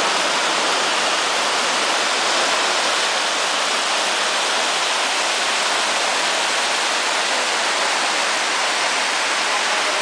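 Small waterfall cascading over rocks: a steady, loud rush of falling and churning water.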